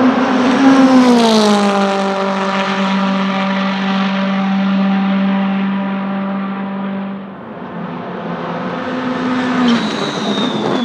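Volvo S60 Polestar TC1 touring car's turbocharged 1.6-litre four-cylinder running at high revs as it passes, its pitch dropping about a second in, then holding a steady note as it fades down the straight. Near the end a second pass comes up and drops in pitch again.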